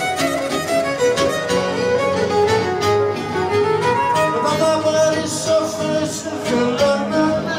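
Live Greek folk dance music with a violin leading the tune over a steady beat.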